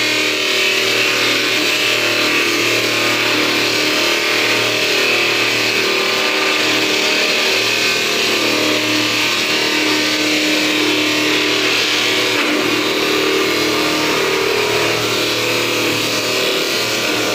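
Electric-motor-driven wood-log sawdust machine running and milling wood into sawdust: a steady, continuous mechanical noise with a low hum under it.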